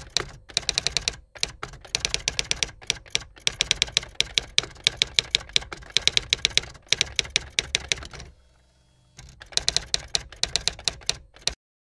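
Manual typewriter keys clacking in quick runs of strikes. The typing pauses for about a second, starts again, then stops shortly before the end.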